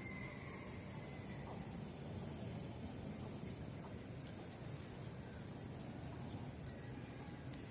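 Garden insects: a steady high-pitched drone with a short chirp repeating about once a second, over low background noise.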